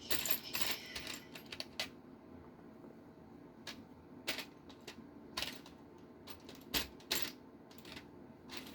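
Small metal screws clicking and clinking as they are picked through by hand: a quick run of clicks in the first two seconds, then single clicks every second or so.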